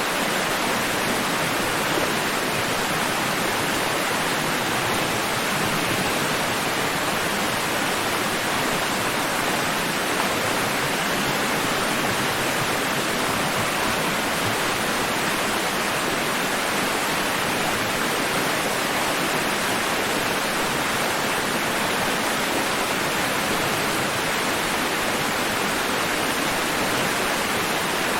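Steady, even rush of water with no distinct swells or breaks.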